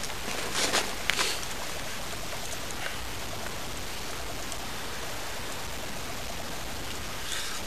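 Wood campfire burning with a steady hiss and scattered crackles and pops. There is a short cluster of louder bursts about a second in.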